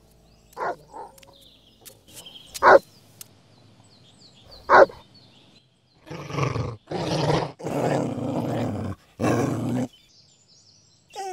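A dog barks a few times, with two loud sharp barks about two seconds apart, then growls in four long growls of about a second each.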